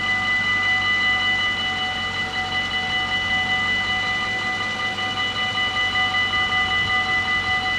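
Dutch level-crossing warning bells ringing without a break, a bright metallic ring with a quick even pulse, while the barriers are down and the red lights flash: the warning that a train is approaching the crossing.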